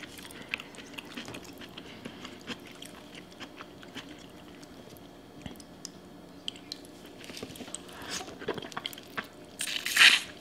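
Close-up eating sounds from a seafood boil: small wet clicks and squishes of fingers digging through saucy shrimp, corn and potatoes, with quiet chewing. A louder bite into a sauce-covered shrimp comes near the end.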